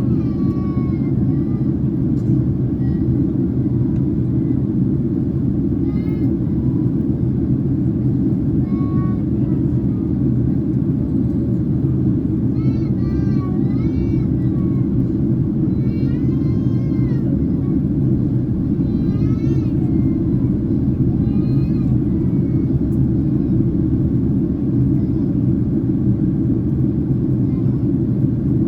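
Cabin noise inside a Boeing 767-300ER airliner: a steady, deep rumble of the engines and airframe that does not change.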